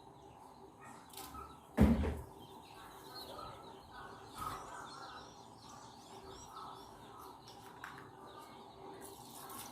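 Faint birds chirping in the background, with a single thump about two seconds in.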